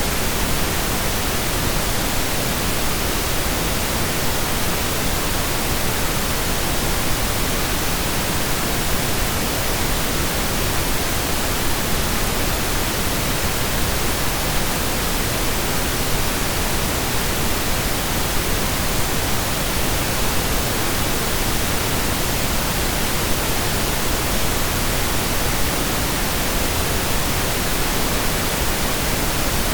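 Steady synthesized pink noise, an even hiss that stays unchanged throughout.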